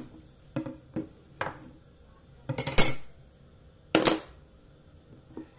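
Dishes and kitchen utensils clinking and clattering as they are handled: a series of separate knocks, the loudest a short cluster about two and a half seconds in and another about four seconds in.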